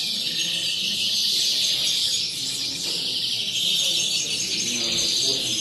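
Several caged European greenfinches singing at once: a continuous, high-pitched twittering chorus.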